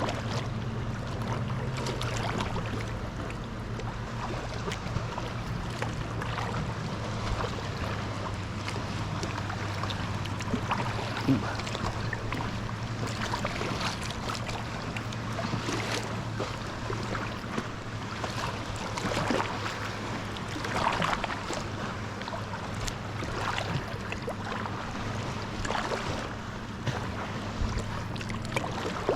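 Water splashing and lapping against a kayak as it is paddled through choppy lake water, with a splash every couple of seconds. A steady low hum runs underneath.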